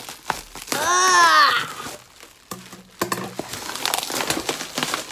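Bubble wrap and packing tape crinkling and rustling as a box is cut open with scissors. About a second in, a woman gives a loud, strained cry of "ah!" that rises and falls in pitch.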